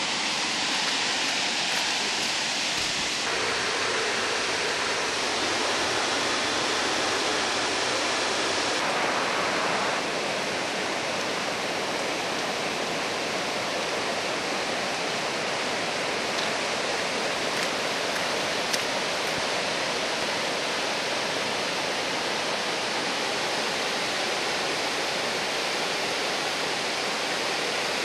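Steady rush of a swollen, fast-flowing river tumbling over a low weir as white water. The tone of the rush shifts slightly about three seconds in and again about ten seconds in.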